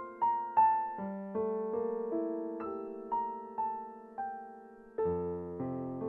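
Background piano music: single notes struck in a slow, gently falling melody over held lower notes, with deeper bass notes coming in about five seconds in.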